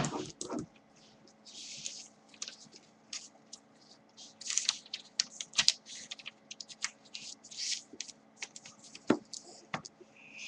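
Drawing on paper: quick, irregular scratching strokes of a drawing implement across the sheet, with a few dull knocks of handling, one right at the start and another about nine seconds in.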